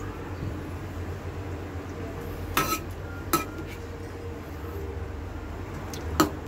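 Metal spatula stirring a thick stew in a metal wok, clinking sharply against the pan three times: twice in the middle and once near the end. A steady low hum runs underneath.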